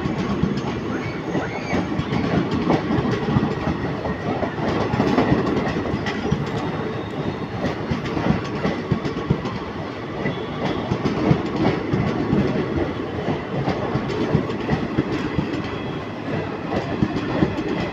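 Passenger train running by, its wheels clattering steadily over the rail joints with a continuous rumble.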